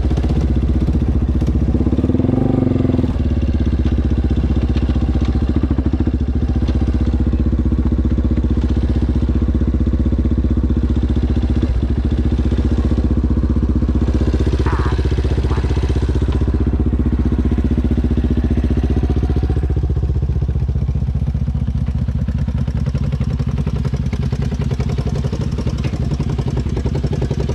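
ATV engine running steadily, its pitch shifting slightly about twenty seconds in.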